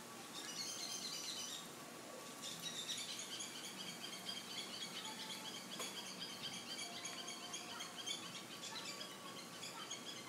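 Birds in the trees chirping, a dense, rapid chatter of high chirps that breaks off briefly about a second and a half in and then picks up again.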